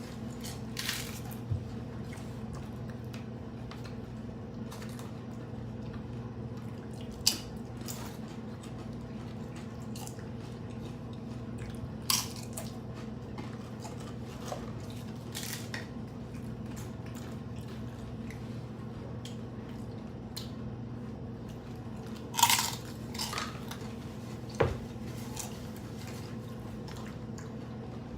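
Eating sounds: a handful of scattered crunches and clicks from biting into crunchy hard-shell tacos and tortilla chips and handling the plate, the loudest a little over two-thirds through. A steady low hum runs underneath.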